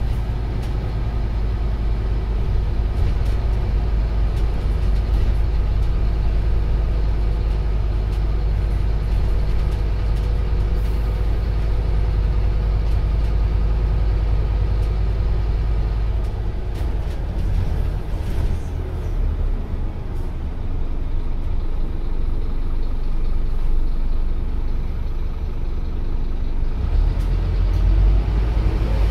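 Scania Omnicity single-deck bus running along the road, heard from inside the passenger saloon: a steady low engine and drivetrain rumble with road noise. The rumble eases a little past halfway and builds again near the end.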